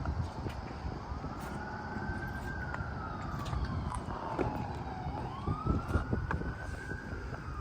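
Emergency vehicle siren wailing, its pitch slowly rising and falling through two full sweeps, over a steady low background rumble.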